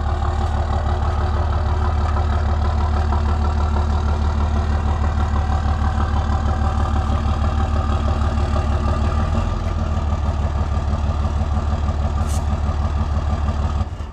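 A combustion engine running steadily at idle with an even, rapid pulse, cut off abruptly near the end.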